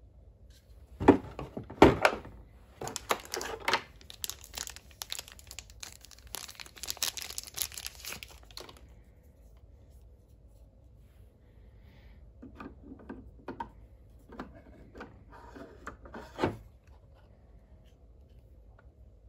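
Handling a Milwaukee laser's plastic battery holder and lithium-ion cell: two sharp plastic knocks, then several seconds of crinkling, then a run of small plastic clicks ending in a louder click as the cylindrical cell is fitted into the holder.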